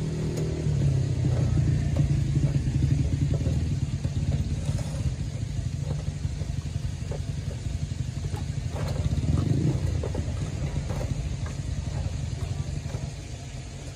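A motor vehicle engine running close by: a low, steady rumble that swells a couple of seconds in and again near ten seconds, then eases off near the end.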